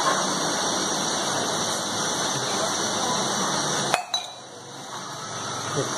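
LPG cylinder-top gas burner hissing steadily under a tawa as a roti cooks, with a sharp click about four seconds in, after which the hiss drops and slowly builds again.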